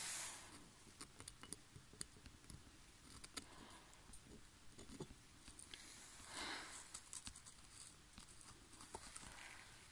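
Metal blade scraping hard carbon deposits off the nozzle of a fouled diesel injector from a Peugeot 306 HDi. Faint, repeated scratching strokes, four or so, with many small clicks and taps of metal on metal.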